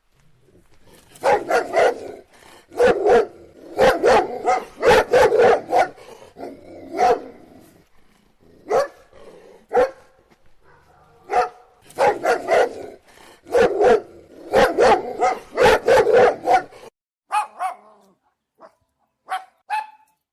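Puppies barking in quick runs of short, sharp barks, then fainter, sparser barks near the end.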